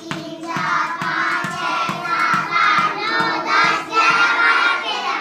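A group of children counting aloud together in a sing-song unison. Underneath are soft, regular thuds of a small ball being bounced by hand, about two or three a second.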